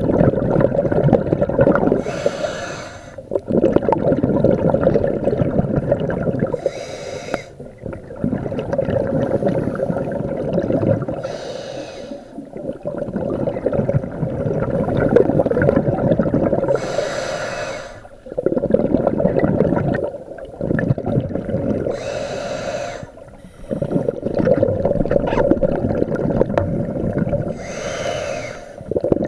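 Scuba diver breathing through a regulator underwater: a short hissing inhale about every five seconds, six in all, each followed by a long rush of exhaled bubbles.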